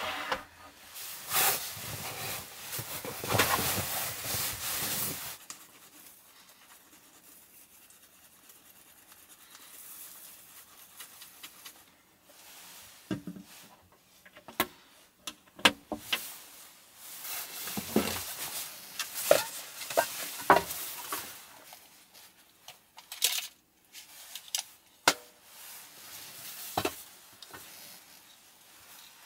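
Close handling sounds in a small wood-panelled room: rustling and rubbing of fabric and a wooden board, then faint toothbrush scrubbing, then a series of scattered sharp clicks and taps from small plastic items being handled.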